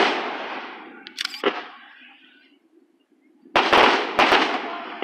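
Fireworks going off in quick volleys of sharp bangs: one volley right at the start and a couple more bangs about a second and a half in, then a lull, then another rapid run of four or five bangs near four seconds in. Each volley trails off in a long, slowly fading echo.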